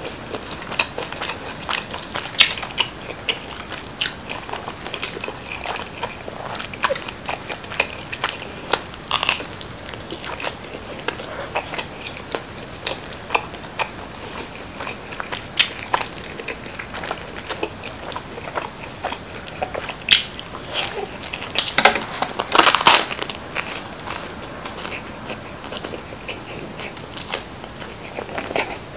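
Close-miked biting and chewing of a slice of Chicago deep-dish pizza, the crisp crust crunching and crackling with each bite, the crunches densest about two-thirds of the way through.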